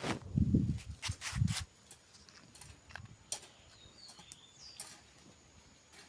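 A small wood-and-straw bonfire crackling with sharp snaps, over two loud low rumbling thumps on the microphone in the first second and a half. A bird chirps twice briefly near the middle.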